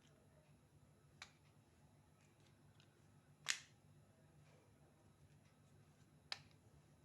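Three short, sharp clicks over near silence: one about a second in, a louder one midway, and one near the end.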